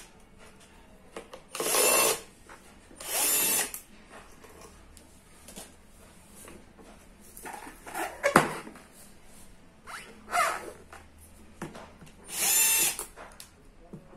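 Cordless drill-driver spinning in three short bursts of about a second each, backing screws out of an electric-rickshaw charger's metal casing. A sharp knock comes in between, about eight seconds in.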